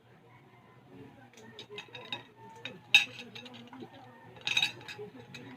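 Light clinks and clicks of plates and utensils during a meal, with a sharp click about three seconds in and a short rustling, cracking burst about four and a half seconds in.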